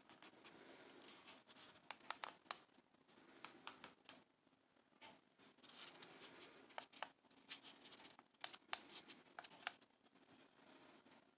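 Near silence: room tone with faint, irregular small clicks and light handling noise, some in quick clusters.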